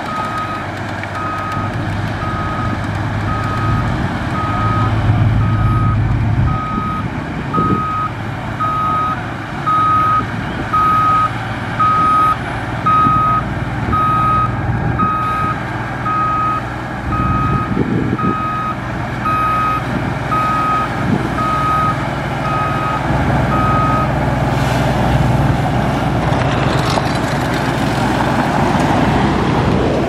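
Reverse alarm of a heavy earthmoving machine beeping steadily about once a second over its diesel engine running, as the machine backs up. The beeping stops a little over three-quarters of the way through and the engine grows louder.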